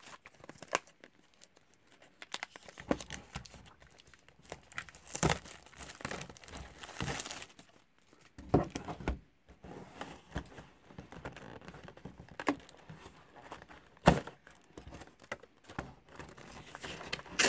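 Plastic wrapping being torn off a sealed hockey card hobby box and crumpled, in irregular crinkling rustles with a few sharper tears.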